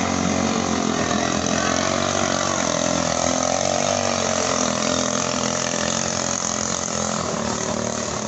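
Small-engine racing longtail boat (ketinting) running at speed across the river: a steady, dense engine drone whose pitch rises and falls slightly around the middle.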